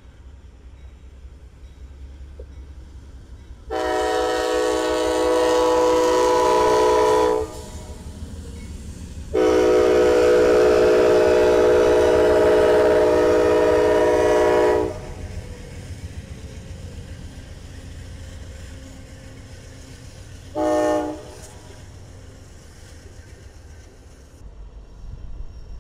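Amtrak P42 diesel locomotive's multi-note air horn sounding two long blasts and one short blast, the long-long-short pattern that opens a grade-crossing signal, over the low rumble of the passing train.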